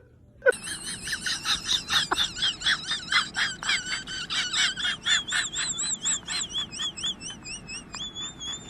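An animal's rapid high chirping, about four chirps a second with a wavering pitch, running into a continuous warbling whistle near the end.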